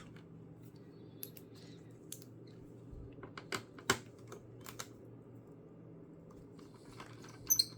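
Scattered light clicks and taps of a screwdriver and the laptop's plastic casing being handled during disassembly, a few louder clicks about four seconds in and a sharp pair near the end, over a low steady hum.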